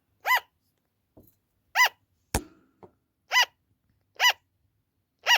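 Sugar glider giving its loud barking 'an-an' call: five short yaps, each rising and falling in pitch, spaced about a second or a second and a half apart. This is the kind of call that often goes on for a long time without stopping. A single sharp click sounds about two seconds in.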